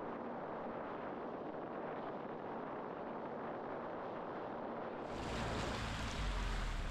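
Sea-Doo personal watercraft running at speed across the water, a steady rush of engine and spray. About five seconds in it cuts to a low rumble of wind on the microphone.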